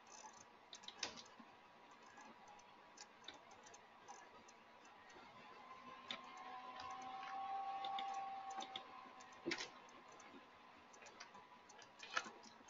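Faint, irregular clicks of a computer mouse and keyboard, with a faint steady hum that swells and fades in the middle.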